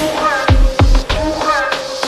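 Background electronic music with a heavy, regular beat and a melodic synth line.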